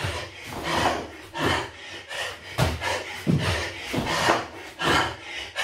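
A man panting hard through hands-off burpees, with thuds and rubbing as he jumps, drops to his hands and lands on foam floor mats, in irregular bursts about every second.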